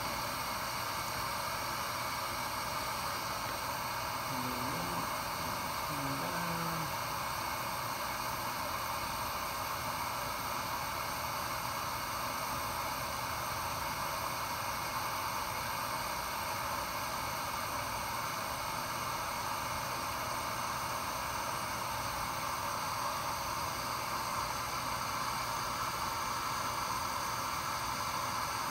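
Steady hiss of hot gas blowing from a BGA rework station's heating head while a reflow profile runs.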